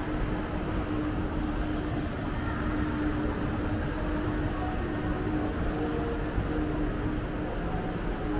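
Steady shopping-mall background noise, with a constant low hum running through it.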